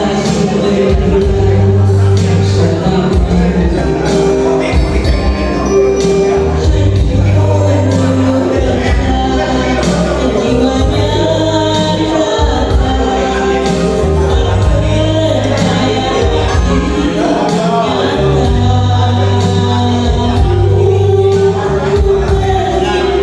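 Music with singing over a heavy bass line, a tambourine jingling along.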